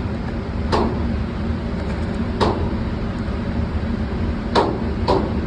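Steady low rumble of range ventilation with four sharp, muffled gunshots from neighbouring lanes, spaced irregularly, the last two half a second apart.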